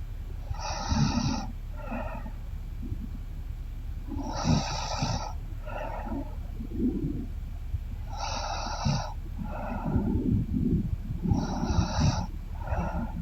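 A woman snoring in her sleep, four snores in a steady breathing rhythm about every three and a half seconds, each a louder rasp followed about a second later by a shorter, fainter one.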